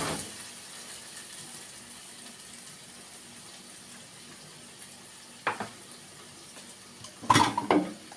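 Kitchenware handled on a countertop: a single sharp knock about five and a half seconds in, then a short clatter of dishes being knocked and moved near the end. Between them there is only a quiet steady kitchen hum.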